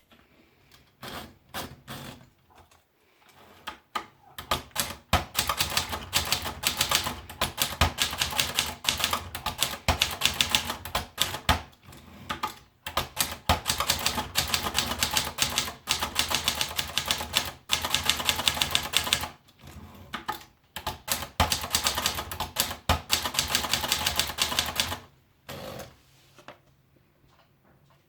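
Triumph Tippa S portable manual typewriter being typed on: a few scattered keystrokes at first, then fast runs of typing broken by short pauses.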